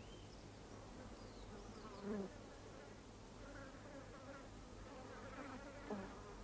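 Faint buzzing of flies, the pitch wavering up and down, briefly louder about two seconds in. A low steady hum runs underneath.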